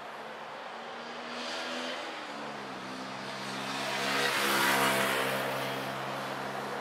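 Cars passing on a bridge roadway: a steady engine hum sets in about two seconds in, and a rush of tyre and engine noise swells to its loudest about four and a half seconds in as a vehicle goes by, then eases.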